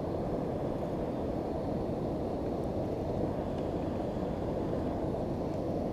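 Steady low rushing noise of wind and water on an action camera's microphone as the kayak moves along trolling, with a few faint ticks.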